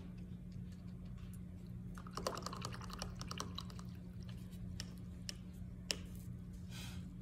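Small clicks and rattles of paintbrushes being handled, a quick run about two seconds in and a few single clicks later, over a steady low hum.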